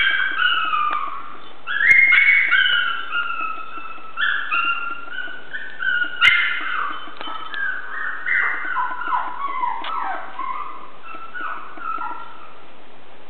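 Several Chihuahua puppies whimpering and yipping: many short, high-pitched cries that fall in pitch and overlap one another, thinning out after about ten seconds. There are two sharp clicks, about two and six seconds in.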